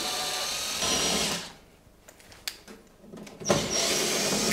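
Cordless drill-driver running as it backs screws out of a tumble dryer's back panel: one run of about a second and a half, a pause, then a second run of about a second near the end.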